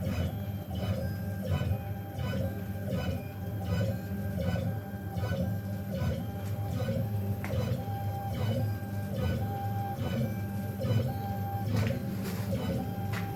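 Onefinity CNC machine running, its stepper motors whining in tones that jump from pitch to pitch every fraction of a second as the axes move.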